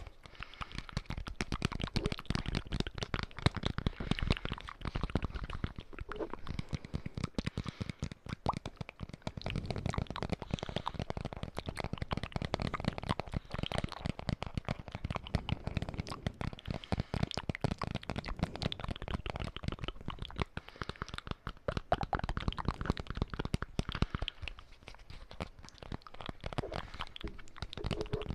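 Close-miked ASMR triggers: a near-continuous stream of fast taps, clicks and crackles with heavy low thumps, easing off for a few seconds near the end.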